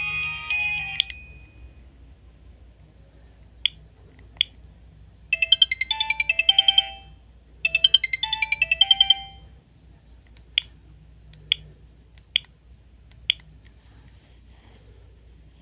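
Sony Ericsson K310a mobile phone playing its alert tones through its small speaker. A melody cuts off about a second in. Then come two single short beeps, a quick run of high chirpy notes played twice in a row, and four more single beeps about a second apart.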